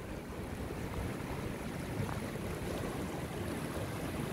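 Steady rush of a small mountain river, with wind buffeting the microphone.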